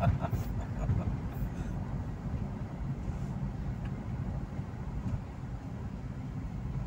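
Ford Everest heard from inside the cabin while driving: a steady low rumble of engine and tyre noise on a road test after a cylinder head replacement.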